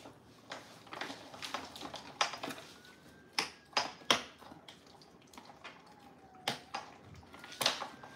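Golden retriever chewing a dehydrated pig ear: irregular crunches and cracks, a handful of them much louder than the rest.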